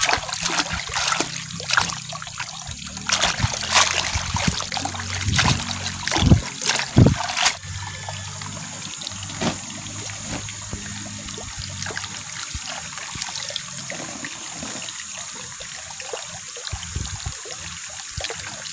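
A hand swishes and splashes a bunch of water spinach (kangkung) in pond water to rinse it, in irregular splashes. About seven and a half seconds in, the sound changes suddenly to a steady soft trickle of water with a thin high tone over it.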